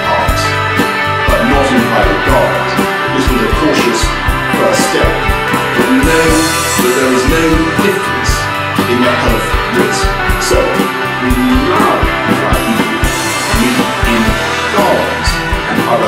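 Rock band music: a drum kit keeps a steady beat under bass and guitars, with a melodic lead line winding over them.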